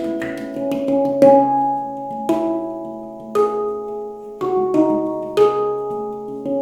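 Handpan played by hand: single notes struck about once a second, each ringing on with a sustained, overlapping tone, with a few quicker light taps between them.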